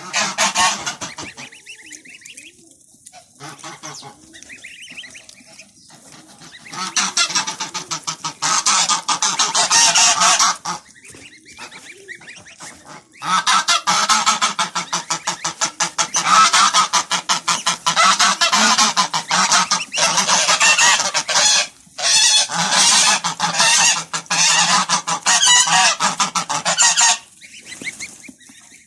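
A flock of domestic geese honking noisily, many calling at once in long loud bouts with quieter stretches between.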